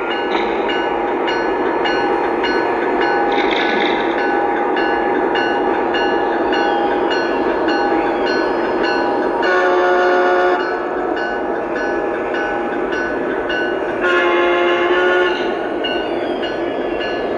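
Lionel O-gauge Amtrak Acela model train running along the track with a steady hum from its onboard sound system, sounding two horn blasts of about a second each, the first a little past halfway and the second a few seconds later.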